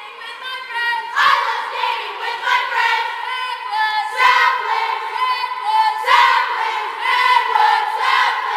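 A group of women's voices shouting and cheering together, many voices at once, swelling in repeated loud surges.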